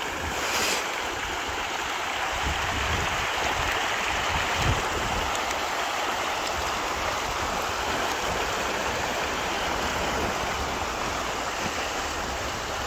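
Many fish thrashing at the surface of a pond, a steady dense splashing like rushing water.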